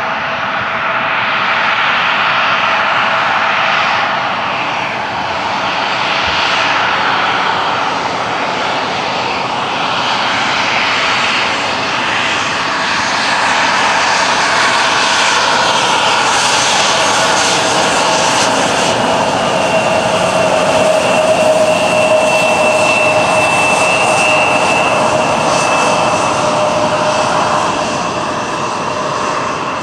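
Bombardier CRJ-700 regional jet's two rear-mounted General Electric CF34 turbofans running at low power as the jet taxis past. A steady jet whine sits over a rushing hum, and a high-pitched tone grows clearer about two-thirds of the way through as the engines pass and turn away.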